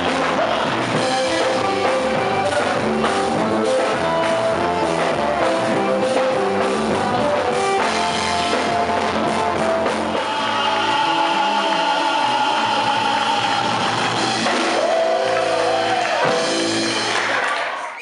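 A Brazilian band plays with singing, drums and guitar. About ten seconds in the bass thins out, leaving long held notes, and the music drops away right at the end.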